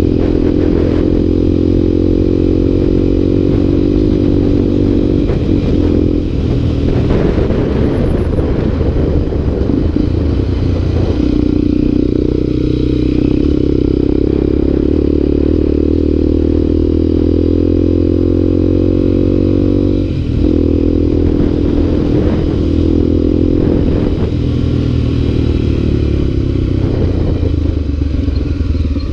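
Motorcycle engine running while riding along a dirt road, heard close up from the bike. Its note climbs slowly, drops sharply about twenty seconds in as the throttle comes off, then picks up again, with a few knocks over the bumps.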